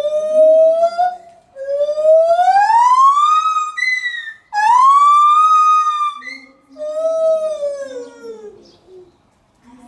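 White-handed gibbon calling: a series of long, clear hooting notes, most sliding upward in pitch, with a short higher note about four seconds in and a slowly falling note near the end.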